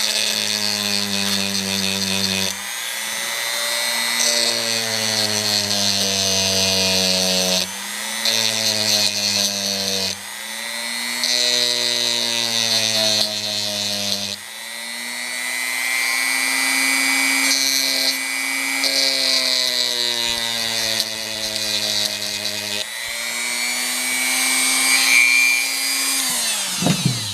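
Dremel rotary tool running at speed, its bit grinding lightly at the die-cast metal body in repeated short passes to shave clearance where the tire rubs. The motor whine dips each time the bit bears on the metal and rises again between passes, then winds down with a falling pitch at the very end as it is switched off.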